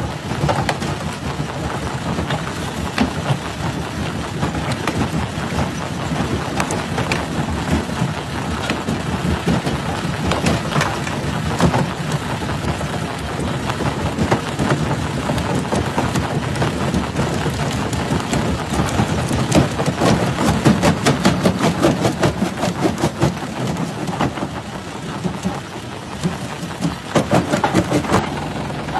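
Rock crusher breaking stones: a steady low machine rumble under a continuous rattle of cracking and grinding rock, with a dense run of sharp cracks about two-thirds of the way through and another shortly before the end.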